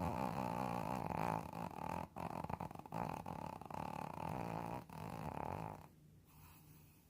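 Shih tzu snoring, a rattling snore that breaks off briefly twice and stops about six seconds in.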